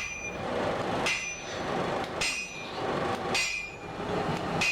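Hand hammer striking steel on an anvil, five blows about a second apart, each followed by a short metallic ring.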